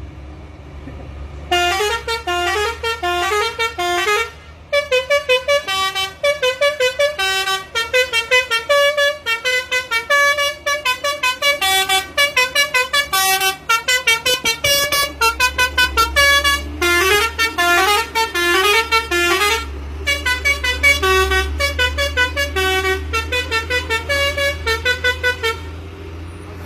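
A truck's telolet horn, a multi-tone musical horn, plays quick runs of shrill notes in a tune, breaking off briefly about four seconds in and again near twenty seconds. The truck's engine runs low and steady underneath, louder in the second half.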